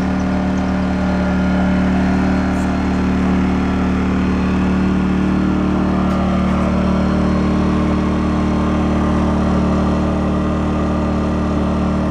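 Smarter Tools AP2000IQ inverter generator engine running steadily with its smart throttle off, on its first cold start.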